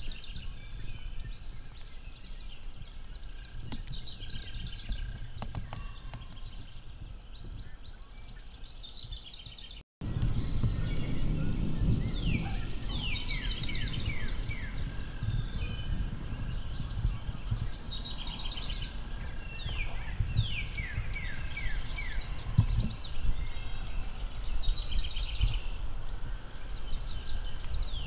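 Wild turkey gobblers gobbling again and again, each gobble a quick rattling run of falling notes. Faint at first, the gobbles are louder from about ten seconds in.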